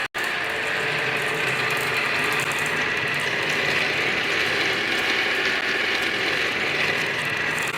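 Small toy vehicles rolling down a wooden wavy ramp, with a continuous rattling clatter of wheels on the wooden track.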